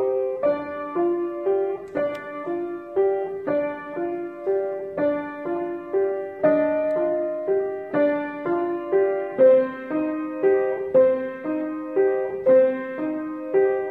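Heilmann upright piano played solo: a slow, evenly paced arpeggiated melody, the notes ringing into one another.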